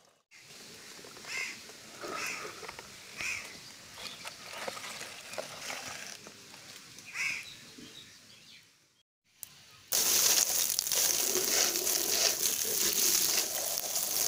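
Water poured in a steady stream onto a plastic toy truck standing in mud, splashing loudly, starting about ten seconds in. Before it, quiet outdoor ambience with a few short chirps.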